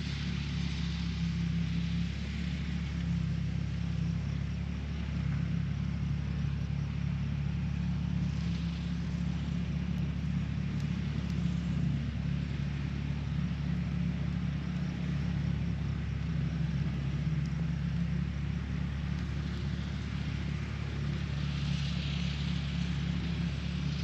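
Steady low rumble with a faint hum, unchanging throughout.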